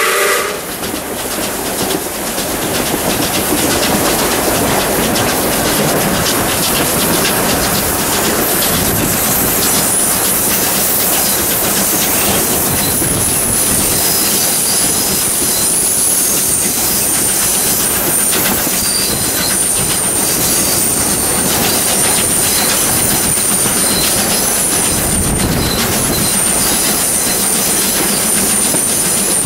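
Steel passenger carriage of a steam-hauled train running along the track, heard from an open window: a steady loud rumble and rattle of wheels on rails, with thin high-pitched squeals of wheel flanges on curves coming and going from about ten seconds in. A steam whistle blast cuts off at the very start.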